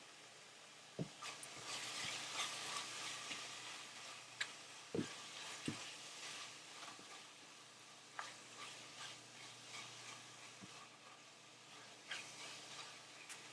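Food sizzling in a frying pan while it is stirred, with a few sharp knocks of the utensil against the pan, the loudest about a second in and near five and six seconds in.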